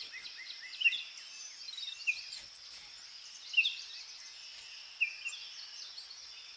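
Birdsong: several birds chirping in short, quick sweeping notes, with louder calls about a second, three and a half seconds and five seconds in, over a steady high hiss.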